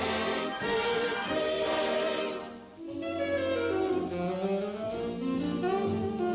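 Cartoon soundtrack music: a band with orchestra closes out a chorus, dips briefly a little under three seconds in, then a saxophone leads into a jazzy tune.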